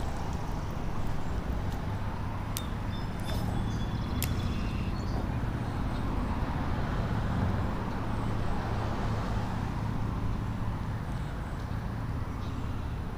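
Steady low rumble of road traffic crossing the bridge overhead.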